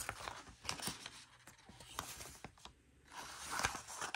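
Paper banknotes and paper envelopes being handled: soft rustling swishes with scattered small clicks and taps.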